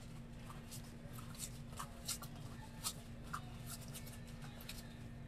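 Faint scattered clicks and rustles over a steady low hum.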